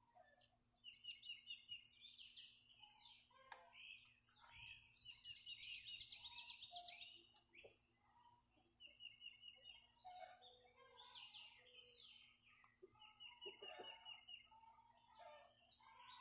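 Young chicks chirping and trilling: repeated runs of rapid high chirps, some sliding downward, with scattered lower, softer notes in between.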